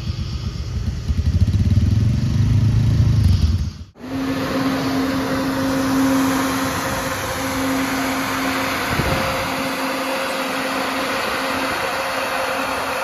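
Farm machinery running: a low engine rumble for about four seconds, then, after an abrupt cut, a steady machine hum with a constant tone over a hiss.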